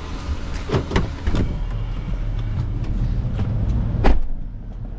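Steady low road rumble inside a moving car's cabin, with a few short knocks about a second in and a louder thump near four seconds.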